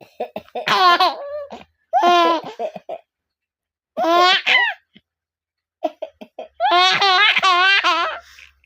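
A young child laughing in four high-pitched fits, the pitch wobbling through each, with coughs mixed into the laughter. The last fit, starting about six and a half seconds in, is the longest.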